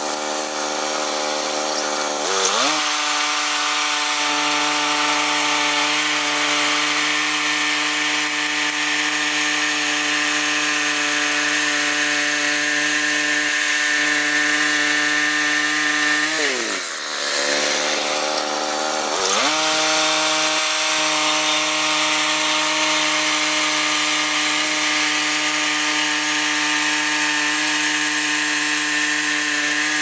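Woodland Mills HM122 portable bandsaw mill running, its small engine speeding up to a steady pitch about two seconds in, while a new Wood-Mizer DoubleHard band blade saws a 14–15 inch yellow pine log. The engine's pitch drops about halfway through and climbs back a few seconds later.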